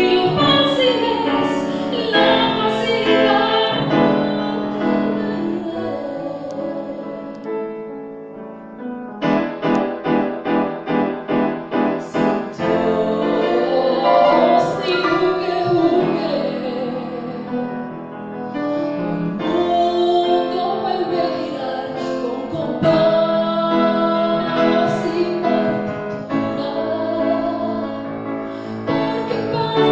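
A song: a woman singing over piano accompaniment, with a run of rapid repeated chords, about three a second, roughly a third of the way in.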